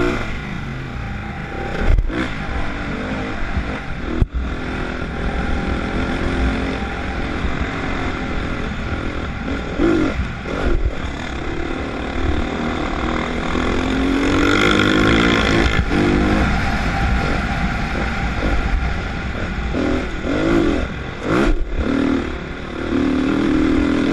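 Dirt bike engine running under load on a gravel trail, revving up and down as the throttle opens and closes, with a longer rising rev about two thirds of the way through. Heavy wind rumble on the helmet-mounted microphone lies underneath.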